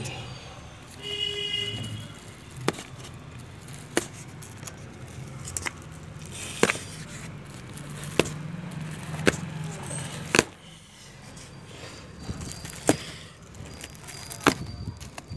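Cardboard box and plastic-wrapped plants being handled during unpacking: sharp knocks and crinkles come about every one to two seconds over a low steady hum. A short high tone sounds about a second in.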